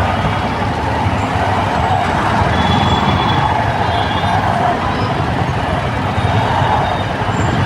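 Steady noise of congested road traffic, with the engines of trucks, buses and cars running.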